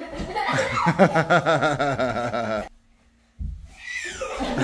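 People laughing in a quick run of ha-ha-ha. It breaks off for a moment about two-thirds of the way in, then starts again.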